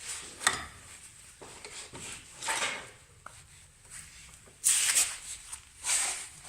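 Tools and sockets being rummaged through in a toolbox: a sharp click, then several short rustling scrapes and clatters.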